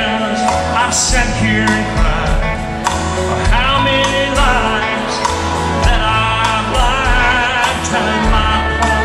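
A live country band playing through an arena PA, recorded from the audience: guitars, bass and drums under a wavering lead melody line.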